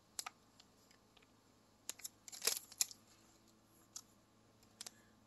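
Plastic bait package being handled: scattered faint crinkles and clicks, with a denser crackling cluster about two and a half seconds in.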